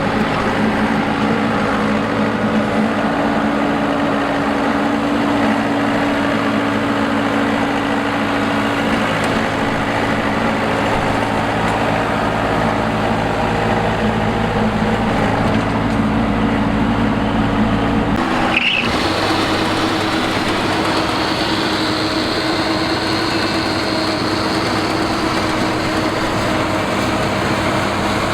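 Engine of a rice harvesting machine running steadily under load. About two-thirds of the way through there is a sudden break, and the engine continues with a different tone.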